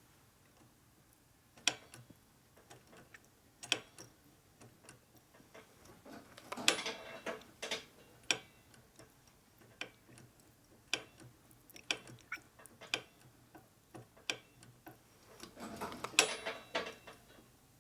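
Irregular light clicks and knocks from hand work on the motorcycle's brake system during bleeding. There are two longer, rougher rattling bursts, one about a third of the way in and one near the end.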